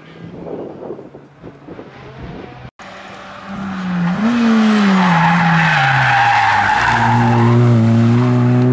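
Hillclimb race car engine growing loud, its pitch rising briefly and then dropping steadily as it comes off the throttle. The tyres skid and squeal for about two seconds, then the engine settles into a steady low note.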